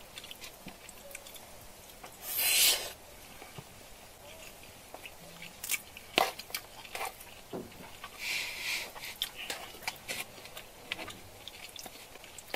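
Close-up eating sounds: chewing with scattered small clicks, broken by two short hissy bursts, the louder one about two seconds in.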